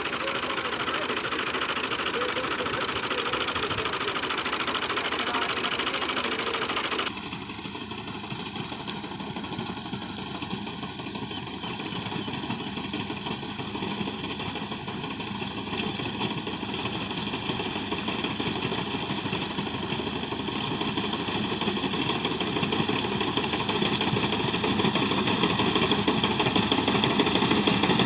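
Engine of a wheat reaper machine running steadily. The sound changes abruptly about seven seconds in, then grows gradually louder.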